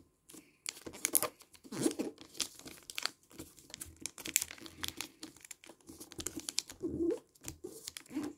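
Blue origami colored paper rustling and crinkling as fingers fold its corners in to the centre and press the creases flat, with many irregular small crackles.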